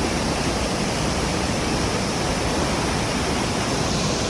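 Rushing water, a steady even roar like a fast stream or small waterfall.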